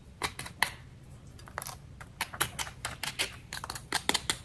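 A knife cutting through the extra-crispy skin of skillet-fried chicken. It makes a run of small, sharp, irregular crunching crackles, sparse at first and coming thicker from about a second and a half in.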